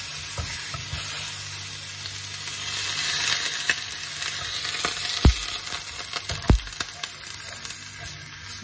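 Lamb neck pieces searing in hot olive oil in a frying pan, a steady sizzle. Tongs and meat knock against the pan twice a little past the middle, about a second apart, as the pieces are turned over.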